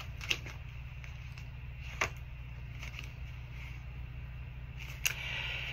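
A deck of tarot cards being shuffled by hand: three short, soft card snaps, the last and loudest near the end, over a steady low hum.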